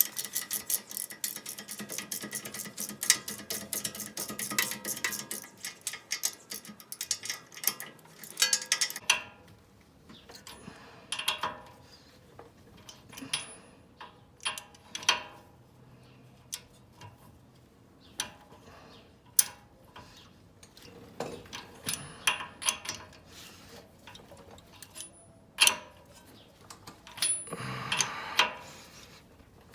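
Hand ratchet clicking in quick, even strokes for about nine seconds as the castle nut on the tie rod end is tightened down, followed by scattered metal clinks and knocks of tools being handled.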